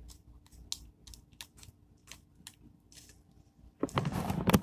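Light, irregular crinkly ticks as a small packet is handled and its contents are tapped into a plastic container, then a louder rustling near the end.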